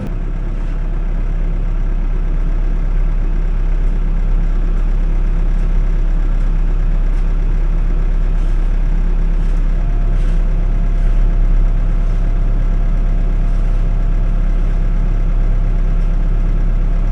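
Backhoe's diesel engine running, getting louder over the first couple of seconds as it is throttled up, then holding at a steady, loud working pitch.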